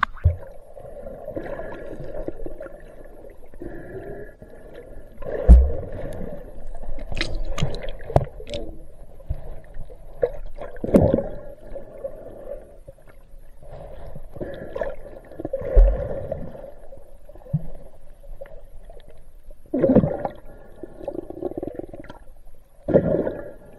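Muffled underwater sloshing and gurgling picked up by a waterproof action camera held below the surface, with dull thumps about every five seconds.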